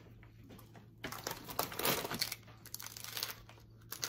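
Crinkling of a Fritos corn chip bag as a hand rummages inside it for chips, in irregular crackles that are densest over about a second in the middle.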